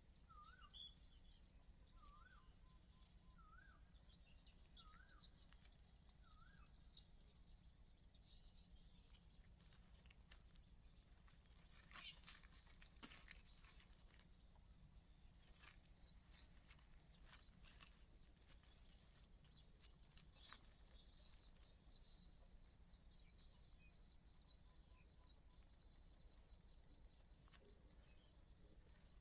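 Small birds chirping: short, high chirps, spaced out at first, then coming quickly, several a second, through the second half. A few wavy whistled notes sound in the first few seconds, and a brief patch of crackling clicks comes near the middle.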